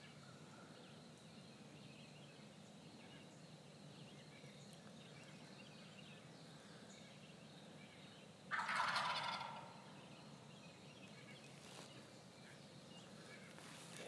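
A wild turkey gobbler gobbling once, a single call of about a second, about two-thirds of the way in, over faint background hiss.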